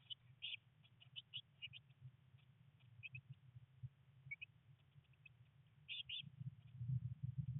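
Blue tit nestlings in a nest box giving faint, short, high chirps in scattered clusters, with a brief louder pair about six seconds in. A low rumble grows louder near the end.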